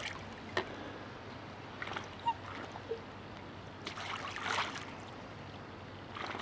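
Black swans courting on the water, making short splashes and sloshing as they dip and move. There are brief splashes about half a second and two seconds in, a longer stretch of sloshing around four to five seconds, and another splash at the end.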